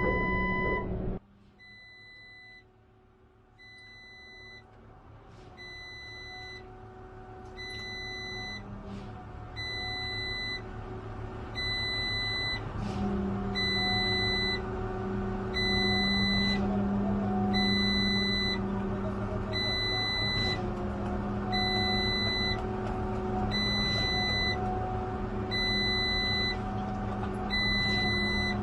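Backup alarm of a construction vehicle beeping about once a second over a low engine drone, growing louder over the first half and then holding steady.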